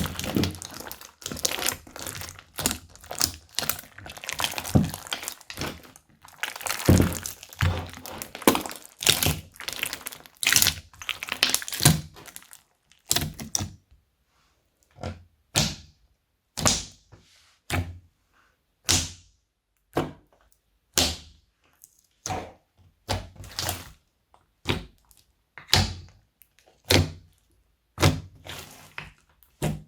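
Slime being handled and pressed by hand: a dense run of sticky clicks and crackles for about the first twelve seconds, then single sharp pops about once a second.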